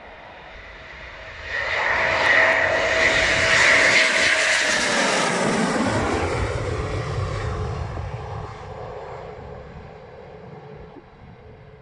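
Eurofighter Typhoon's twin EJ200 turbofan engines passing low overhead on approach for a touch-and-go. The jet noise rises sharply about a second and a half in and stays loud for several seconds, with its whine dropping in pitch as the jet passes over. It then fades to a low rumble as the aircraft goes down the runway.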